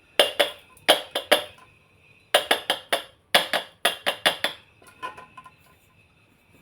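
Quick, sharp knocks of kitchenware while powdered sugar is measured out with a measuring cup, in three runs of four to six taps, then a few light clicks about five seconds in.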